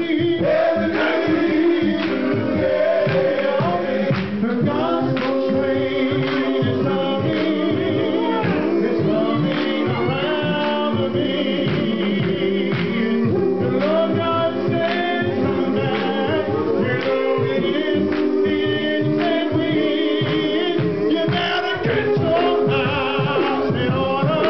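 Men's gospel choir singing behind a lead vocalist on a microphone, over a steady beat.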